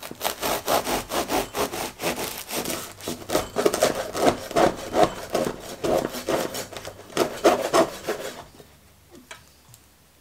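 Bread knife sawing back and forth through the baked crust of a sourdough focaccia, down to a wooden chopping board: quick rasping strokes, several a second, that stop about eight seconds in.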